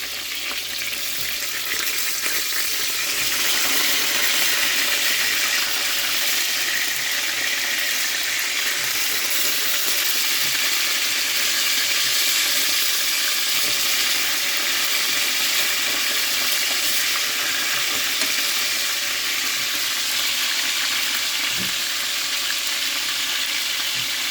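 Chicken pieces frying in hot oil in a pot: a steady sizzle with scattered small crackles.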